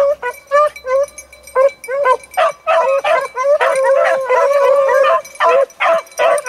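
A pack of beagles baying on a rabbit's trail. Separate short yelps at first; from about two and a half seconds in, several voices overlap in a continuous chorus for a couple of seconds, then break back into separate yelps.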